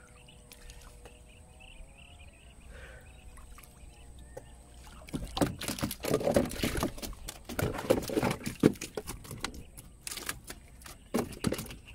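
Water splashing and sloshing, starting about five seconds in, as a swimmer comes alongside a small wooden boat and grips its edge. Near the end, freshly speared tilapia flap and splash in the water at the bottom of the boat.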